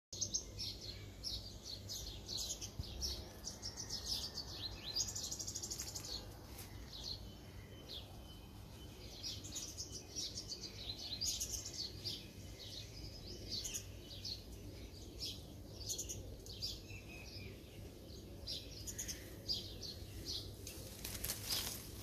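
Small birds chirping: many short, high chirps and calls scattered through, with a fast trill about five seconds in, over a faint low background hum.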